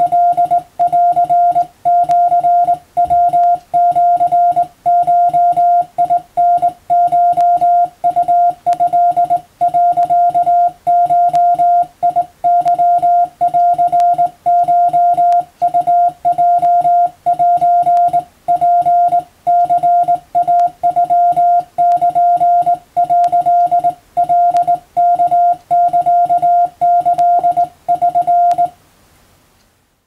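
Morse code sent by hand on a straight telegraph key: a single-pitched beep keyed on and off in dots and dashes, spelling out Japanese kana (wabun) telegram text at about 12 words per minute. It stops shortly before the end.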